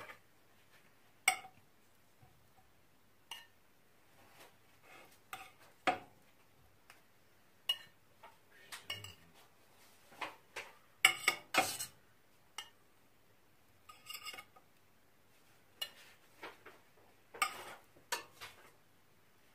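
Metal cutlery and dishes clinking and scraping in irregular short knocks, some ringing briefly, the loudest cluster a little past halfway.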